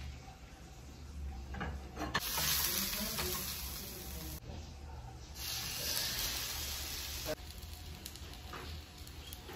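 Butter sizzling in a hot non-stick frying pan, then a slice of egg-soaked bread frying for French toast. The sizzle comes in two stretches, each starting and stopping abruptly.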